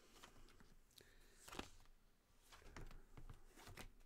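Near silence with a few faint soft rustles and taps of tarot cards being handled, about halfway through and again near the end.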